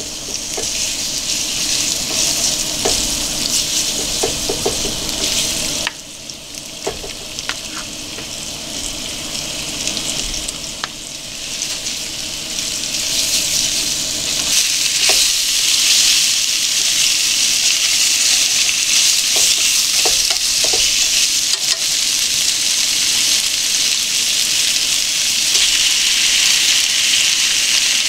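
Thin, flour-dusted pork slices sizzling in hot oil in a frying pan as they are laid in. The sizzle drops briefly early on, then builds and holds loud through the second half, with occasional light clicks.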